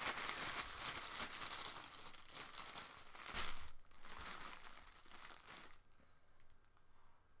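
Plastic crinkling and rustling as it is handled, louder for the first few seconds, then fading to faint rustles in the last couple of seconds.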